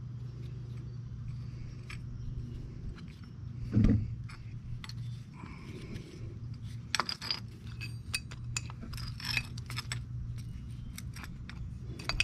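Hand tools and metal air fittings clinking and tapping in scattered light knocks, with one louder dull thump about four seconds in, over a steady low hum.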